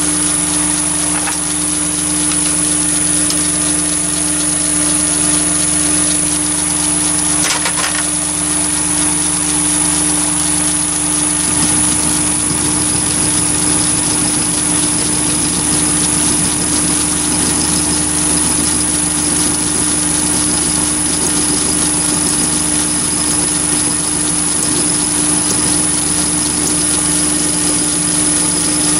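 Chinese mini lathe running steadily, its motor and spindle giving a constant high whine, while a brass tube clamped in a toolpost vice is hand-fed into a cutter in the chuck to mill a slot.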